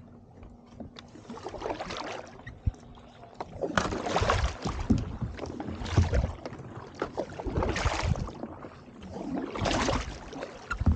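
Kayak paddle strokes through icy sea water, a swishing splash swelling and fading about every two seconds and getting stronger about four seconds in, with scattered light knocks.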